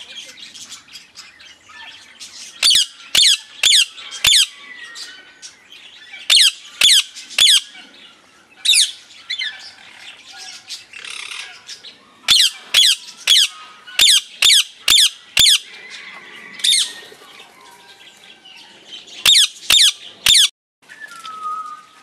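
Ring-necked parakeets giving loud, shrill screeches in quick runs of three to eight calls, with pauses between the runs.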